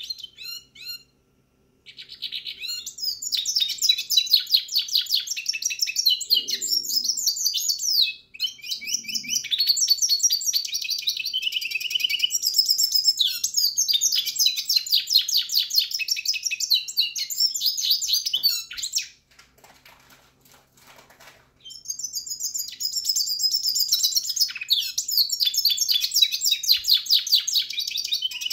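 Pintagol, a red siskin × canary hybrid, singing a fast, high twittering song in long unbroken phrases, with a pause of a couple of seconds about two-thirds of the way through.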